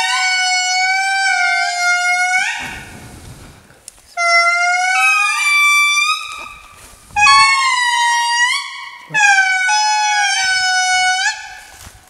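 Indri lemurs (Indri indri) singing: loud wailing notes, two or more voices overlapping, each phrase held and then swooping upward in pitch. The song comes in three stretches of a few seconds each, with short pauses between them.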